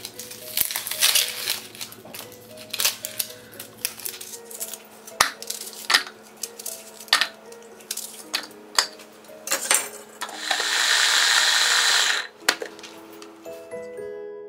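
Knife cutting an onion, with clicks and knocks as pieces drop into a plastic chopper bowl. About ten seconds in, an electric mini chopper runs for about two seconds, chopping the onion, then stops. Soft background music throughout.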